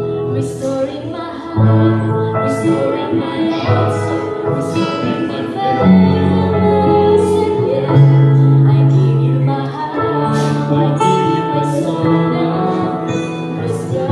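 A woman and a man singing a slow song together as a duet into a microphone, over instrumental accompaniment with long held low notes.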